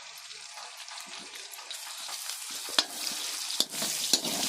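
Food sizzling in a frying pan, with three sharp knocks of a stirring utensil against the pan in the second half. The sizzle grows steadily louder.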